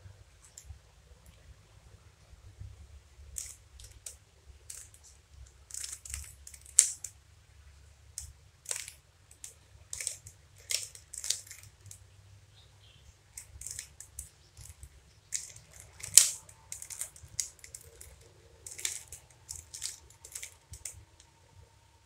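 Plastic 3x3 Rubik's cube being turned by hand: irregular runs of clicking and clacking as its layers are rotated, with two sharper snaps, one about a third of the way in and one about three quarters through.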